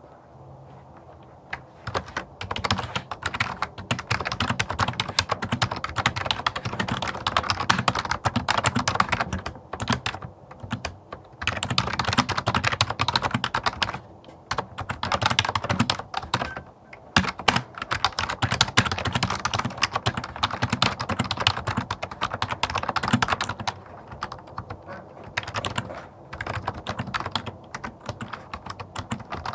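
Typing on a Logitech MK520 wireless keyboard, the membrane keys clattering in fast runs with a few short pauses, close to the microphone.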